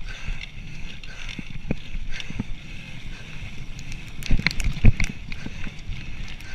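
Mountain bike rolling fast over a bumpy dirt forest trail: a steady rumble from the tyres and frame, with a cluster of sharp knocks and rattles from bumps about four to five seconds in.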